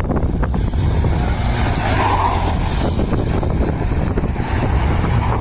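Small commuter motorcycle's engine running under throttle as the bike is spun round in a foot-down drift, its rear tyre scrabbling in loose sand.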